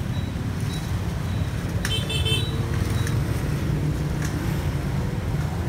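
Steady low rumble of street traffic, with motorbike engines idling close by. A few short clinks sound over it, one ringing briefly about two seconds in.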